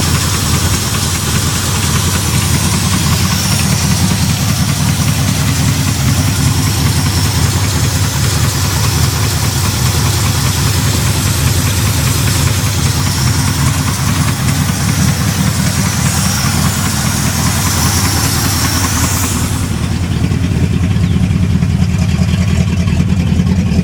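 Rebuilt Oldsmobile 455 V8, bored .030 over with a Comp Cams XE268 camshaft, running steadily at idle. A high hiss over it stops about twenty seconds in.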